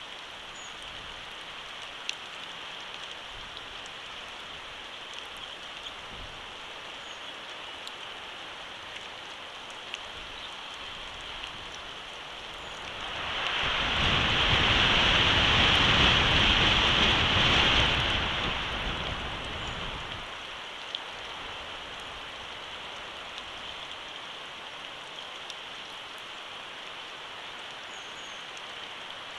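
Steady rain with scattered ticks of single drops. About halfway through, a gust of wind swells for several seconds, with a low rumble, and then dies away.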